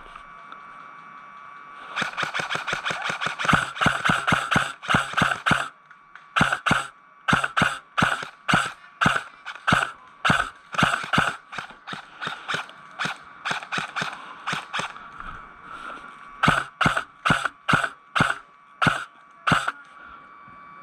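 Airsoft gun firing at an opposing player: a quick string of sharp shots starting about two seconds in, then steady single shots about two a second, a short pause, and another quick string near the end.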